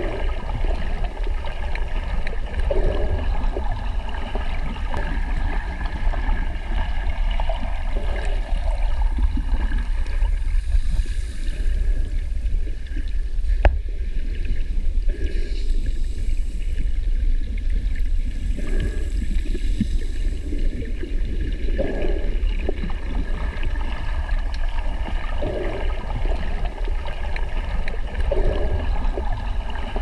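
Steady low underwater rumble with soft gurgles every few seconds, and a single sharp tick about halfway through.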